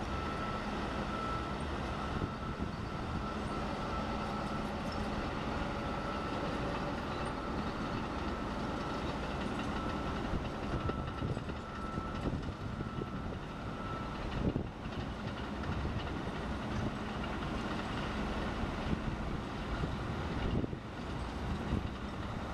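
Diesel engines of a crawler dozer and a wheel loader working the dirt, a steady drone with a low hum under it. A thin high whine runs over it and stops a little past halfway.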